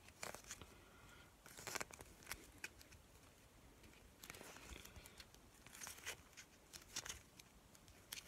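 Faint, short swishes of baseball cards being slid one at a time from the front to the back of a hand-held stack, a soft scrape every second or two at an uneven pace.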